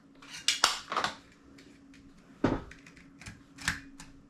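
A series of sharp plastic clicks and knocks from the cassette compartment of a Sony DCR-TRV900 MiniDV camcorder as a tape is loaded and the door is pushed shut, with the heaviest knock about halfway through; the door does not latch easily unless pressed in exactly the right spot.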